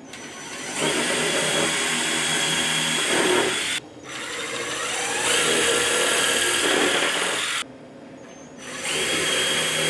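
Power drill boring holes into a plywood board with a small twist bit: three runs of the motor whining and the bit cutting wood, each about three seconds long. The second run starts slowly and builds up in speed.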